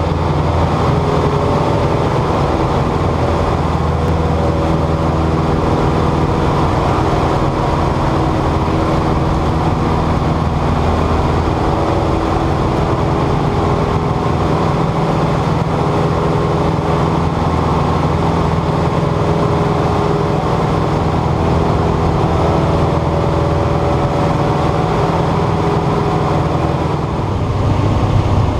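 Aeronca Champion light plane in flight, its small flat-four air-cooled engine and propeller droning steadily, heard inside the cabin. It picks up slightly near the end.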